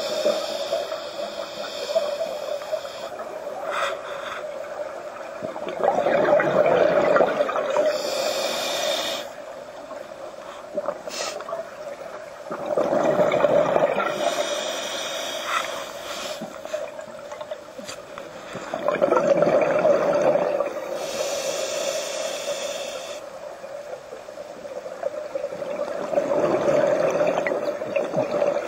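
Scuba diver breathing through a regulator underwater: a bubbling rush of exhaled air about every six and a half seconds, four times, each followed by the hiss of the next inhale through the regulator, over a steady hum.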